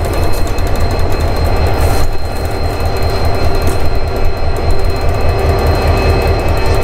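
Diesel-electric freight locomotives of the XR and BL classes passing at close range on a grain train. Their engines run with a deep, steady drone, the wheels clatter over the rails, and a steady high whine sits over it all.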